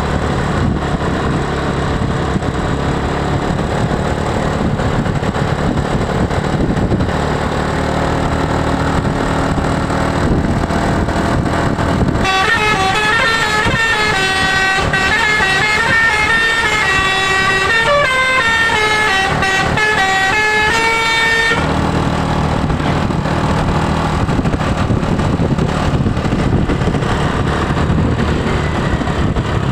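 Bus's telolet basuri musical horn playing a melody of stepping notes for about nine seconds in the middle, over a low steady engine rumble that runs before and after the tune.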